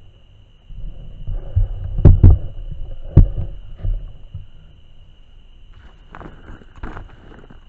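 Heavy low thumps and rustling from a handheld camera being bumped and shifted as it sits in the grass: two close knocks about two seconds in, another a second later, and softer knocks near the end. A steady high whine runs underneath.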